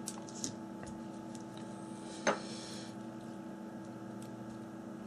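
Steady electrical hum in a small workroom, with a few faint clicks and one short tap about two seconds in from small phone parts and tools being handled during disassembly.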